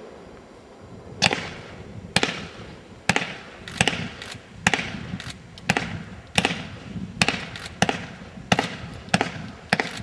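Fireworks firing a rapid series of shots that send stars straight up, about one sharp bang a second, each trailing off briefly. The shots begin about a second in, after a short lull.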